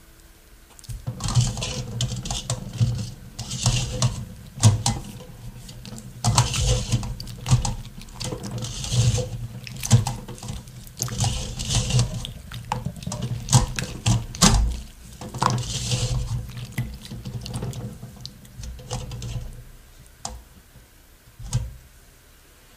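Boiled ginkgo nuts being rubbed by hand in water against a perforated metal strainer to rub off their thin skins. The rubbing comes in repeated swishes every two to three seconds, with small clicks of nuts against the mesh, and dies down near the end.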